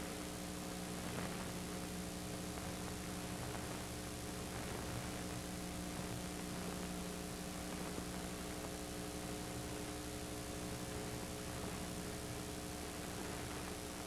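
Steady electrical hum with hiss, several steady tones and nothing else: the film's soundtrack is missing here.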